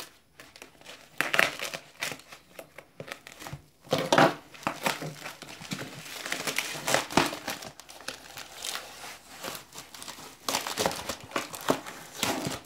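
Thin white foam packing wrap being handled and peeled off a box: irregular crinkling and rustling with louder bursts as it is pulled.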